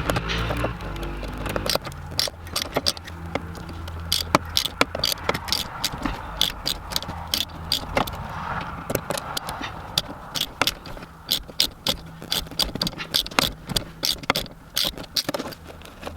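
Irregular sharp clicks, scrapes and rattles of hand tools and metal fittings, with quick runs of clicks near the end, as bolts are being taken out of a car's center console.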